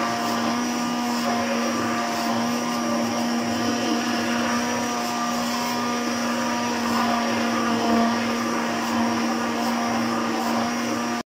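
Electric hand blender running steadily in a bowl of cream and cold water, churning it into butter as it breaks into grains in buttermilk. It cuts off abruptly just before the end.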